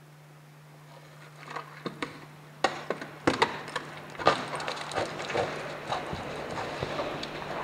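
Loose rocks falling down a crag. Scattered knocks begin about a second and a half in and become a dense, irregular clatter of stones striking rock from about three seconds in, growing louder.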